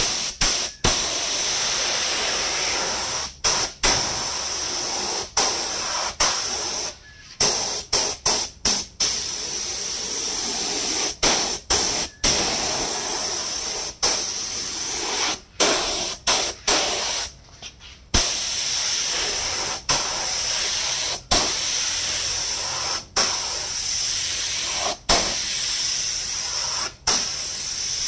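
Gravity-feed spray gun hissing as it sprays the first coat of clear coating onto a car headlamp lens. The spray runs in passes and cuts off and restarts many times.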